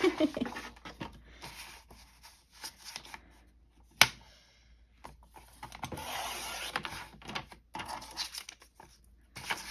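Sliding paper trimmer cutting a sheet of paper: the blade slider drawn along the rail gives a scraping hiss of about two seconds about halfway through, with shorter strokes near the end, amid paper rustling and a sharp click about four seconds in.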